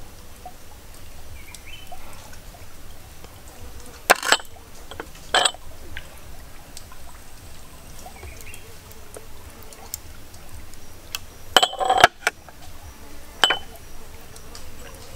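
Small ceramic cup clinking a few times with a short ring while seasoning is sprinkled over a raw whole chicken in a ceramic bowl; a quick cluster of clinks comes near the end.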